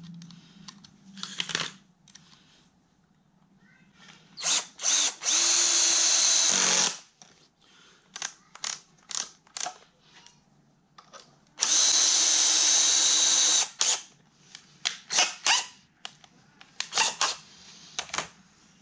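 DeWalt cordless drill driving a wood screw into a mitred 2x4 corner joint: two steady runs of about one and a half and two seconds, with short bursts of the motor before, between and after them.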